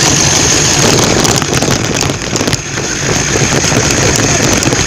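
Remote-control buggy's motor and drivetrain running loud and steady with a high whine, heard close up from a phone strapped to the buggy.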